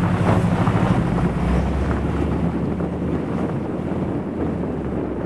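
Old Chevy truck's inline-six engine running as the truck drives along, with wind buffeting the microphone; the engine note fades after about three seconds, leaving mostly wind rush.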